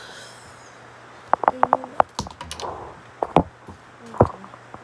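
Handling noise: a quick run of sharp clicks and taps, then a few more single knocks, as parts and packaging are moved about.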